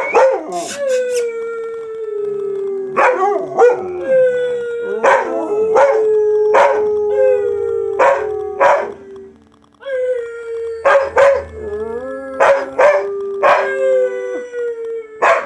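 Siberian husky howling in three long, drawn-out notes that sag slowly in pitch, with a brief pause near the middle. Short sharp barks break in every second or so.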